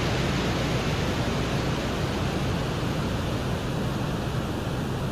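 Steady rushing noise with a strong low rumble and no change in level: the sound recording made by the Soviet Venera 13 lander on the surface of Venus.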